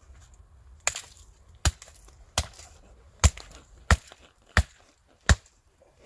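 Hatchet chopping into a thin standing sapling: seven sharp strikes, about one every 0.7 seconds.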